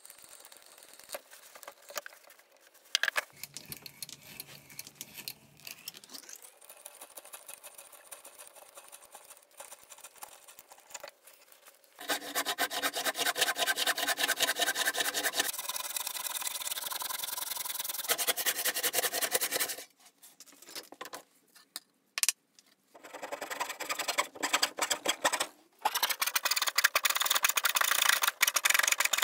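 Hand-tool woodworking. First the quieter scrape and crunch of an auger bit boring into a block of old wood. Then, from about 12 s, a handsaw cuts through the block in a long run of fast, rasping strokes, followed by a few knocks and, from about 23 s, a coping saw cutting the curved outline of a saw handle with loud, quick strokes.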